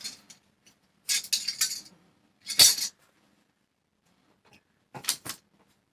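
A plastic clothes hanger clinking and clicking, with denim fabric rustling, as a skirt is taken off the hanger: a scatter of clicks, a louder short rustle just under halfway, and two sharp clicks near the end.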